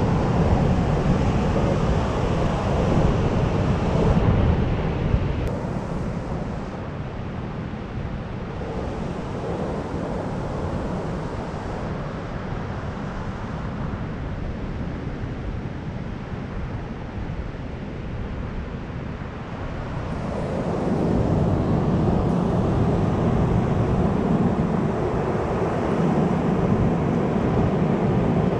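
Ocean surf breaking and washing up the sand, with wind on the microphone. It eases off after about five seconds and grows louder again about twenty seconds in.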